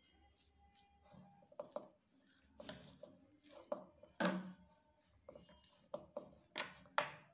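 Metal spoon stirring grated radish filling in a metal kadhai: irregular clinks and scrapes of spoon on pan, about eight in all, the loudest about four seconds in.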